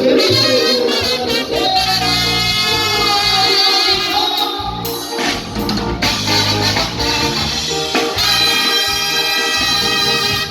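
Mexican banda brass band playing live, the horns carrying a sustained melody over a steady bass.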